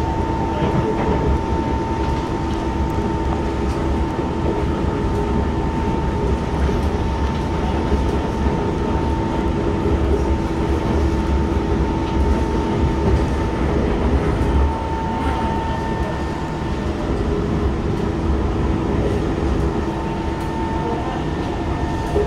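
Interior of an SMRT C151 metro train running along the line: a steady low rumble of the wheels on the rails with two steady hums from the running gear held above it.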